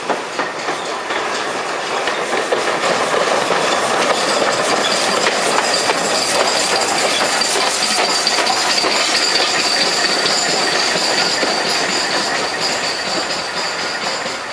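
Steam train running on the line: the rolling clatter of its wheels and the working noise, growing louder over the first couple of seconds and then holding steady. A high steady whine or hiss sits above it from about four seconds in.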